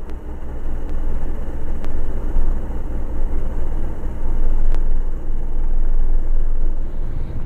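A 1946 North American Navion's piston engine idling during the landing rollout, heard from inside the cabin as a steady low rumble.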